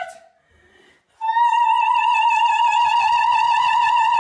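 A calico cat yowling: a long call fades out at the start, then about a second in comes another long, wavering call held at one pitch for over three seconds.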